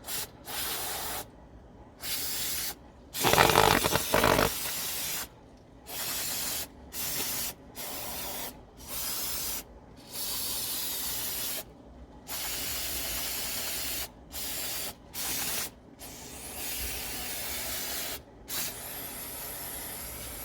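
An aerosol can spraying degreaser onto greasy bicycle hub bearing parts in a series of short hissing bursts, more than a dozen, with gaps between. One longer, louder burst comes about three seconds in.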